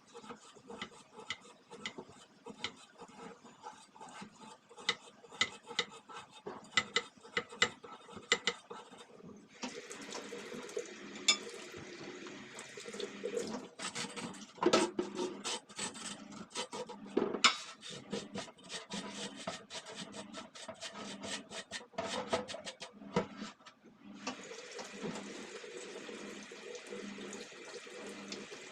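Range hood fan parts being washed at a kitchen sink. First come light clinks and knocks as the metal parts are handled. About ten seconds in the tap starts running, with scrubbing and clattering of the parts under the water. The water pauses briefly near the end, then runs again.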